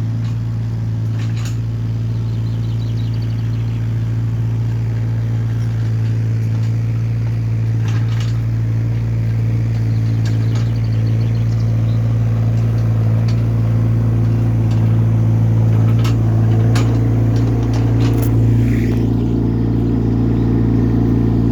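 Hyundai small excavator's diesel engine running steadily, with a few sharp clanks scattered through, and working slightly harder in the last third.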